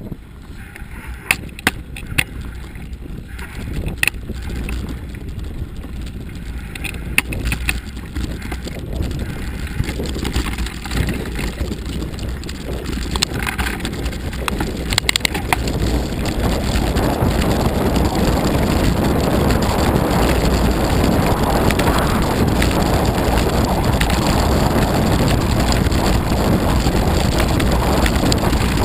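Downhill mountain bike rolling down a snowy track, with sharp knocks and rattles from the bike in the first half. Under them is a rushing noise of wind and tyres that grows louder until about halfway, then holds steady.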